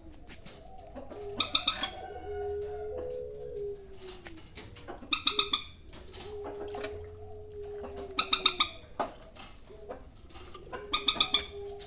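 A bird calling: a quick run of about five sharp notes, repeated four times roughly every three seconds, with a long low steady tone between the runs.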